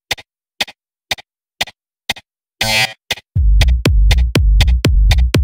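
Electronic dance music: sparse ticking hi-hat clicks about twice a second, a short noisy burst a little past halfway, then a heavy drum-machine kick and deep bass come in and drive on.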